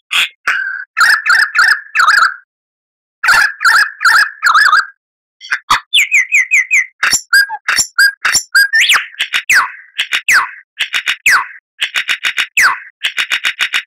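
Lyrebird singing a loud, varied run of calls. Harsh, rattling notes repeat in short bursts with brief pauses, then quick chirps and rapid downward-sweeping whistles and trills follow from about halfway on.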